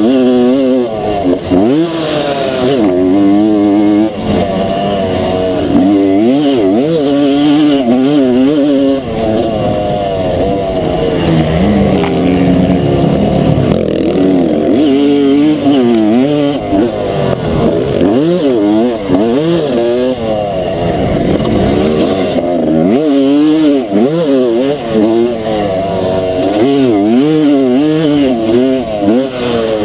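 Pre-1990 Honda CR250 two-stroke single-cylinder motocross engine, heard from on the bike as it is ridden. The revs rise and drop again and again, every second or two, as the rider opens and closes the throttle and shifts through the track's jumps and turns.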